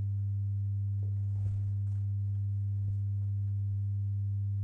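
Steady low electrical mains hum with a buzzy stack of overtones, unchanging throughout. Two faint soft thumps come about a second and a half and about three seconds in.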